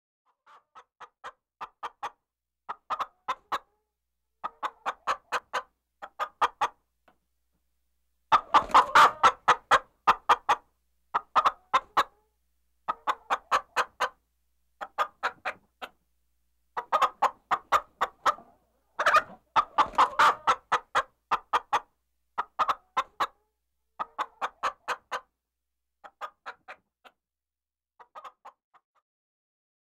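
Chickens clucking in short bursts of quick clucks, a burst every second or two, louder in the middle and thinning out near the end.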